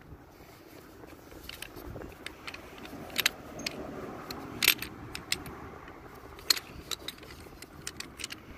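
Irregular clicks and rattles of a cordless hammer drill's loosened side handle being worked onto the drill, its clamp knocking against the tool. The sharpest clicks come about three, four and a half and six and a half seconds in.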